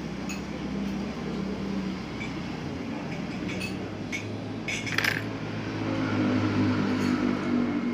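Light clinks of tableware, a spoon or bowl knocking now and then, with a sharper clink about five seconds in, over a steady low hum of eatery background noise.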